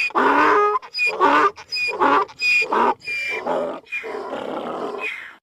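A rapid series of about seven short, harsh animal calls, roughly one every half second or so, each opening with a thin high note; the series cuts off abruptly.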